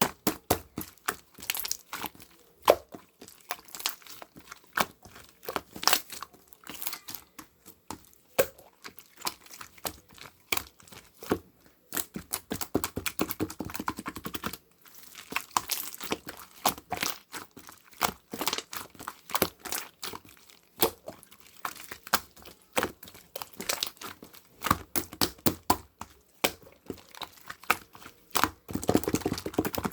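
Slime being squished, poked and stretched by hand: an irregular run of sticky clicks, pops and crackles, thickening into a dense crackle about halfway through and again near the end.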